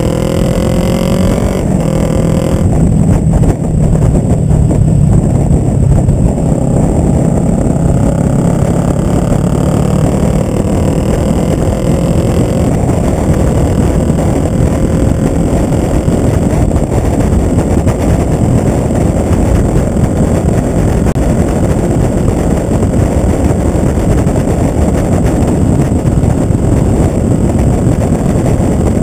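Kawasaki ER-5's parallel-twin engine running loud through a short Delkevic Mini 8-inch slip-on exhaust while riding. The pitch climbs under acceleration, breaks briefly at a gear change about two seconds in, climbs again for about ten seconds, then settles to a fairly steady cruise.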